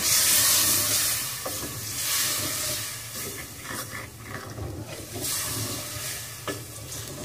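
Chicken and masala sizzling in an aluminium pot, loud at first and dying down over the first few seconds, while a slotted spoon stirs through it and knocks and scrapes against the pot a few times.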